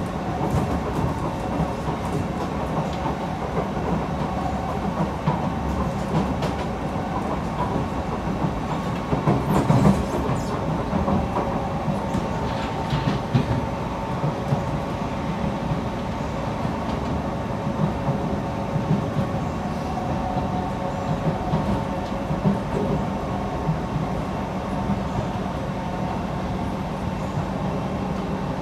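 Kawasaki C151 metro train heard from inside the car while running at speed: a steady rumble of wheels on rail with a few humming tones and scattered clicks. There is a louder clatter about ten seconds in.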